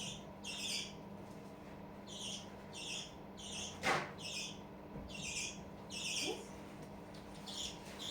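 Baby budgerigar calling: a string of short, high, scratchy chirps, roughly one or two a second. A single sharp knock sounds about four seconds in.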